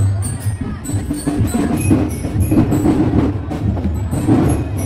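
Marching drum corps of snare and bass drums playing a steady parade beat, with sharp stick clicks over the deep bass-drum strokes.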